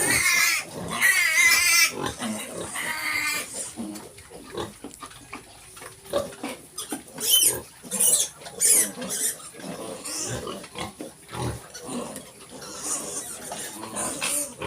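Young piglets squealing shrilly in the first two seconds and again about halfway through, with short grunts and squeaks in between.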